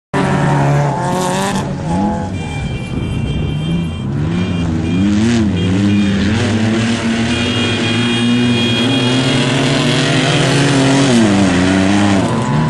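Off-road desert race vehicle engine running hard, its revs climbing and dropping several times with a steadier stretch in the middle. A thin high whine comes and goes over a rough rushing noise.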